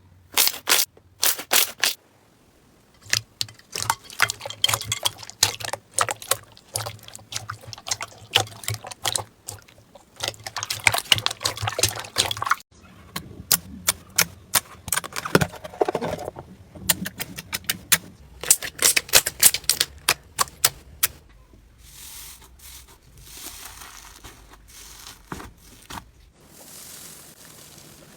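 Slime being squeezed, poked and stretched by hand, giving rapid sticky clicks and crackling pops in bursts. The last few seconds are softer and quieter.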